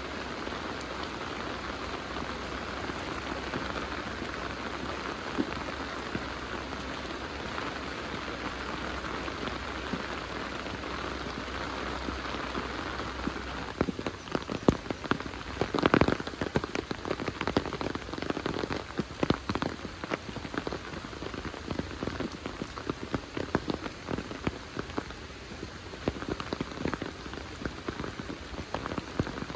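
Heavy rain falling steadily; from about halfway on, many sharp, close drip and drop taps stand out over the hiss.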